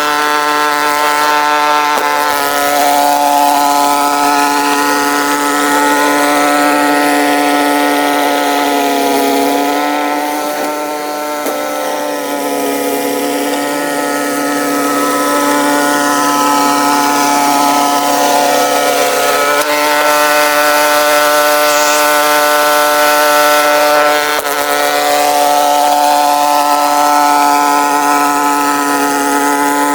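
Snowblower's small gasoline engine running steadily under load, made higher-pitched by sped-up playback. Its pitch sags briefly about ten seconds in and again near twenty seconds.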